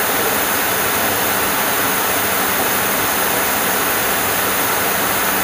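Steady cabin noise on the flight deck of a McDonnell Douglas MD-80 in flight: an even rush of airflow and jet-engine noise with no change in level.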